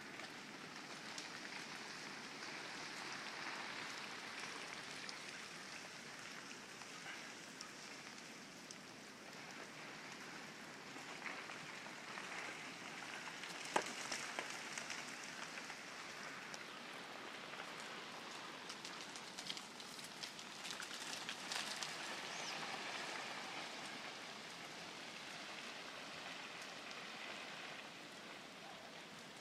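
Melting snow dropping from distant trees: a steady rain-like rushing hiss, like a forest fire or river rapids, scattered with small sharp ticks and one louder click about fourteen seconds in.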